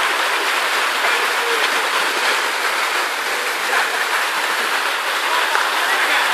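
Steady rushing of water running down water slides and pouring into a pool.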